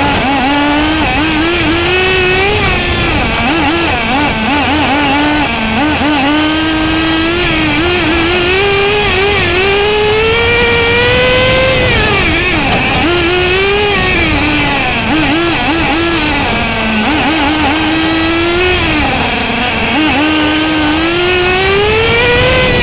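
Two-stroke nitro engine of a Bycmo RC car heard from on board, revving up and down as it accelerates and lifts around the circuit. The pitch climbs and drops over and over, with its longest climb to the highest note about halfway through.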